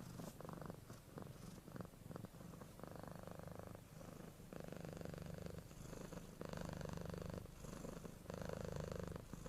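Domestic cat purring, faint at first, then in four louder bouts about a second long with short breaks between them.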